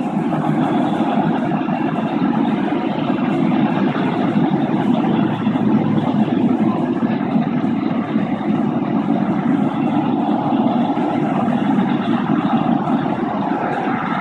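Toy train running steadily, a continuous low rumble with no breaks.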